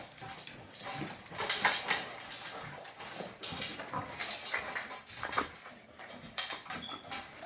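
Labrador retrievers eating from their bowls: irregular chewing and crunching with small clinks and scrapes of a food bowl.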